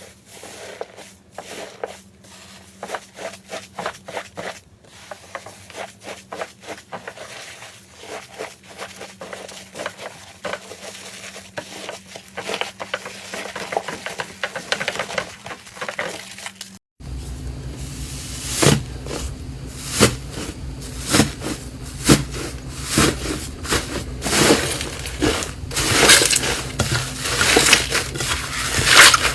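Slime being pressed and squeezed in the hands, with dense crackling and clicking. About halfway through it cuts to a louder clip with sharp crunches about once a second.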